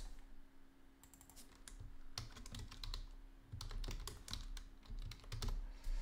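Typing on a computer keyboard: a run of quick key clicks with short pauses, sparse at first and busier from about two seconds in, over a faint steady hum.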